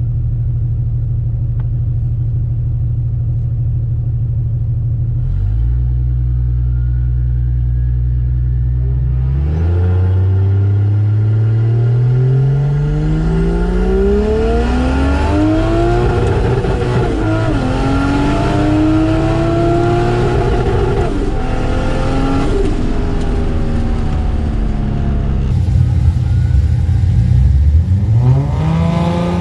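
Turbocharged 2JZ-GTE inline-six in a Holden VH Commodore wagon, heard inside the cabin: running steadily at low revs for about nine seconds, then revving up hard under acceleration, the pitch climbing and dropping back at each upshift. Near the end the engine is heard from trackside, revving up again.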